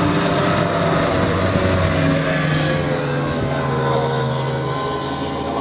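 Mercury outboard engine on an offshore racing catamaran running at racing speed as it passes by, a steady note that drops slightly in pitch about two seconds in as the boat moves away.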